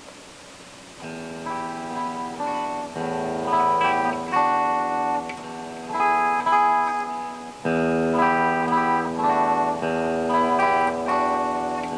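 Solid-body electric guitar played clean. After a near-pause of about a second, picked notes and chords come in, ringing on and overlapping. A fuller, lower chord enters about two-thirds of the way through.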